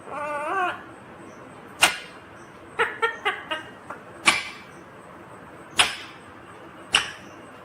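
Indian ringneck parakeet calling: a short warbling call at the start, then a string of brief, sharp squawks spaced out over the following seconds, with a quick cluster of them around the middle.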